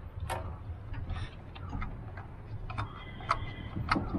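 Irregular light clicks and knocks from a hand working the priming lever of the fuel lift pump on a 1989 Mahindra jeep's diesel engine, pumping fuel through to build pressure before a start.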